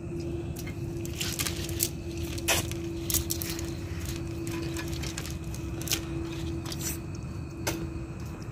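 Wet cast net being picked through by hand: scattered clicks and clinks of its lead sinkers and rustling mesh, over a steady low hum.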